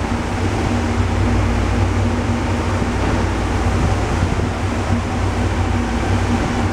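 Kia SKT-21LM CNC turning center running, its spindle turning the chucked part: a loud, steady machine hum with a few constant tones and no breaks.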